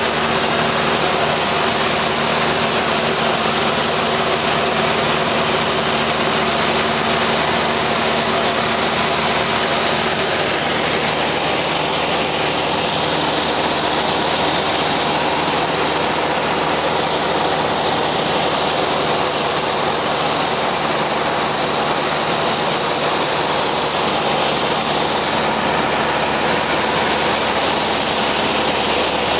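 Cessna 172's piston engine and propeller droning steadily, heard inside the cockpit. The engine note shifts slightly about ten seconds in.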